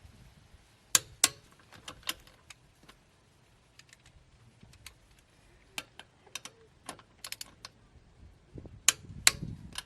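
Sharp metallic clicks at irregular intervals from tightening the wheel's lug nuts with a wrench and socket, with the loudest clicks coming in pairs about a second in and near the end.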